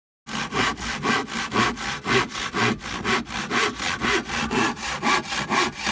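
Bahco hand saw cutting through a wooden board in steady back-and-forth strokes, about two loud strokes a second, starting a moment in.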